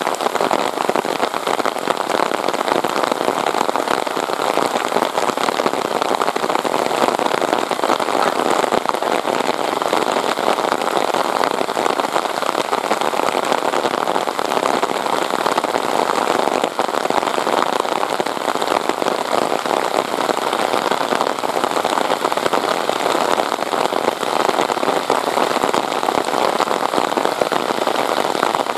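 Heavy rain falling steadily: a dense, even hiss made of countless small drop impacts, loud and unbroken throughout.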